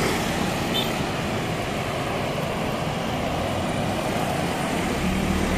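Steady highway traffic noise from cars, trucks and motorcycles passing, with a low engine hum rising near the end.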